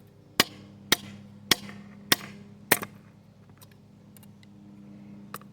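Five sharp hammer blows on a small steel knife blank on an aluminium-block anvil, evenly spaced a little over half a second apart, flattening the blade. Two much lighter taps follow near the end.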